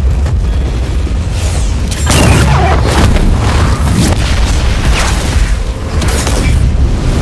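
Cartoon battle sound effects: a deep continuous rumble with a string of whooshing hits and booms, the heaviest about two seconds in.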